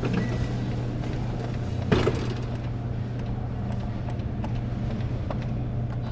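Claw machine being played: a steady low hum with one sharp clunk about two seconds in and a few faint clicks.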